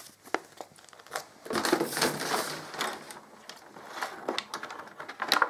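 Paper instruction sheets and a clear plastic packaging tray being handled: rustling and crinkling, with a few sharp plastic clicks near the end.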